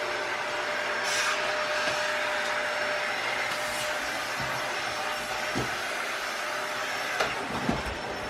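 Vacuum cleaner running steadily, with a few short knocks near the end.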